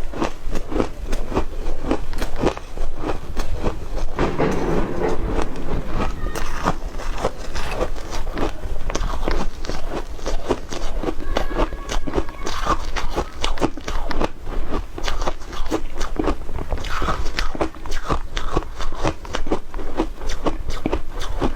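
Shaved ice being bitten and chewed close to the microphone: a steady run of crisp crunches, several a second.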